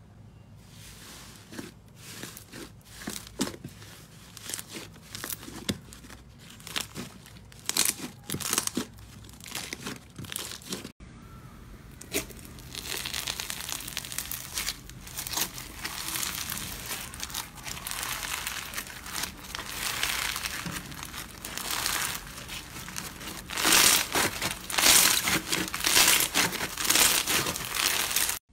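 Slime squeezed and pressed by hand, crackling with scattered pops at first. About eleven seconds in, foam-bead slime (floam) takes over, stretched and kneaded with a dense crunchy crackle that grows loudest near the end.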